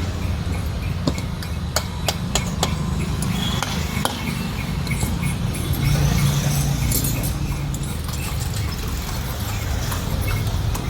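Metal tools and parts clinking and tapping, with several sharp knocks in the first four seconds, over a steady low rumble.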